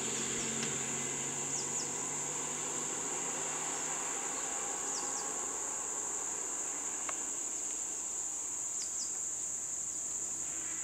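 Steady, high-pitched insect chorus, with pairs of short falling chirps a few times.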